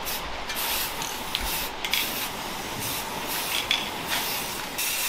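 Aerosol spray-paint can hissing in several short bursts as letters are sprayed on, the last and longest lasting over a second near the end.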